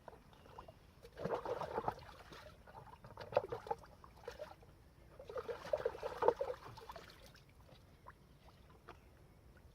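Water splashing and trickling in three bursts, about a second apart, as a magnet fishing rope is pulled through river water to rinse the mud off it.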